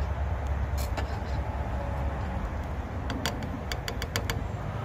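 Propane camp burner running with a steady low roar under a pot that has come to the boil. A quick run of sharp clicks comes about three seconds in.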